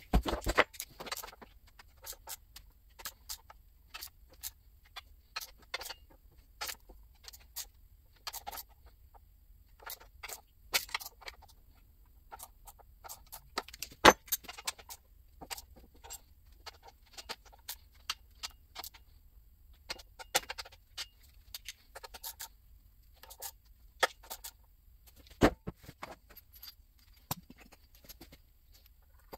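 Scattered light clicks and clinks of small metal parts being handled, with two sharper knocks, one about halfway through and one later on.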